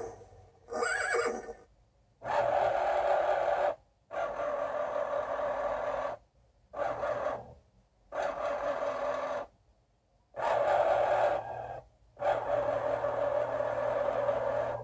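Excalibur Phantom Force chess computer's motor-driven magnet carriage under the board whirring as it slides pieces across the board by itself: about seven separate motor runs, each a second or two long, with short pauses between them as it changes direction.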